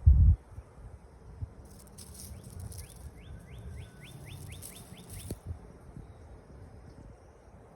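Outdoor ambience: a bird calls a quick run of short sweeping notes, about three a second, over a steady high insect hiss. A brief low thump, the loudest sound, comes right at the start.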